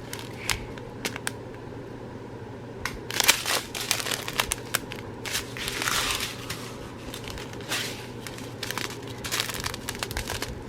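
Plastic packaging crinkling and rustling as it is handled, with scattered light clicks and a few louder bursts of crinkling.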